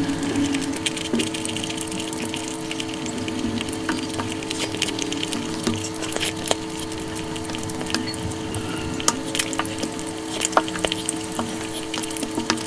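Close-miked eating by hand: wet squelching of fingers mixing rice into curry gravy, with chewing and many small mouth clicks and smacks. A steady low hum runs underneath.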